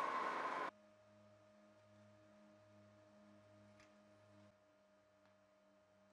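Metal lathe running while a twist drill bores into the spinning steel workpiece, a steady machining noise with a whining tone. It cuts off sharply under a second in, leaving only a faint steady tone and a faint low hum that pulses slowly.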